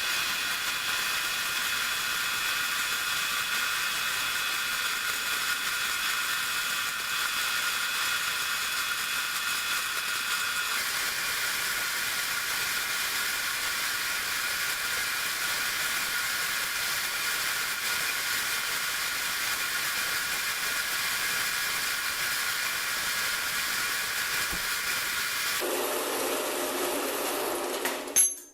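Metal-cutting band saw running steadily through a short piece of steel clamped in its vise, a steady high whine. The tone shifts slightly about eleven seconds in, a lower rumble joins near the end, and then it cuts off suddenly.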